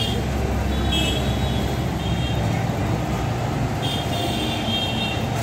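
Street traffic: a vehicle engine running close by with a steady low rumble, and high-pitched horn toots about a second in, at about two seconds, and again from about four seconds for just over a second.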